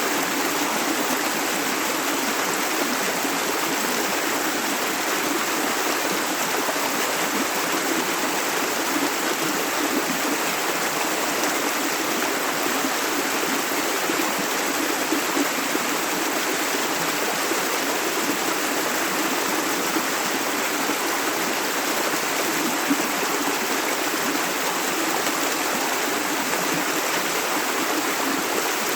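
A river stream flowing over stones, a steady, even rush of water with small splashes and gurgles.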